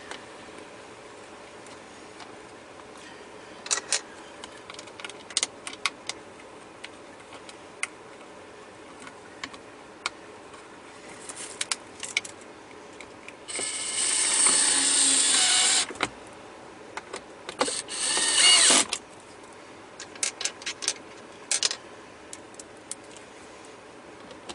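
DeWalt 12V cordless screwdriver running twice while driving in the screws that hold a wireless charging module: a run of about two and a half seconds past the middle, then a shorter one about a second later. Light clicks of handling parts and plastic fall between the runs.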